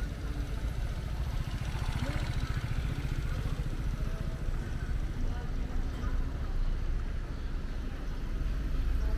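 Street ambience: a steady low rumble with people talking faintly in the background.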